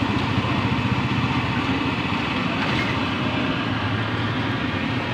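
A motor vehicle engine running steadily, with street traffic noise.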